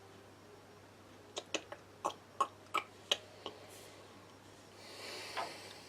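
A quick, irregular run of about eight light clicks and taps over two seconds, like small tools or parts being picked up and set down, then a brief soft rustle near the end.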